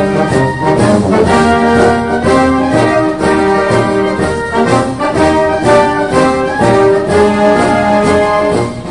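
Brass instruments playing a melody in held notes, one note moving into the next, with a brief break in the phrase just before the end.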